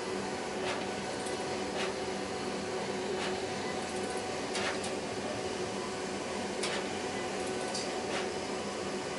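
HP Designjet 5000ps large-format inkjet printer running mid-print: a steady mechanical hum with a faint click every second or so.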